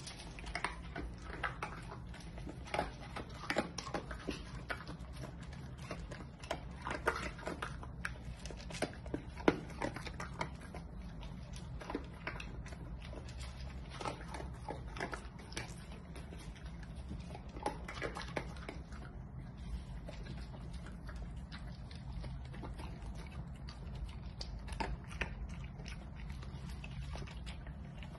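A large dog eating dry kibble from a bowl: irregular crunching and clicking of kibble against the bowl, busiest in roughly the first dozen seconds and sparser after.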